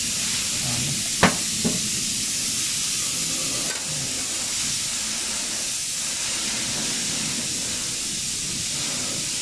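Steady background hiss, with a sharp click about a second in and a fainter click just after, from clutch slave cylinder parts being handled.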